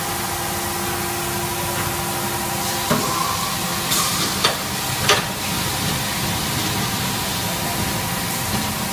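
A motorcycle tire vulcanizing press and the surrounding factory machinery running with a steady hiss and hum. A low tone cuts off with a click about three seconds in, and a few short, sharp hisses and clicks follow about a second later.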